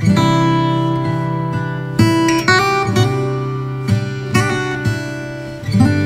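Background music: an acoustic guitar strumming chords.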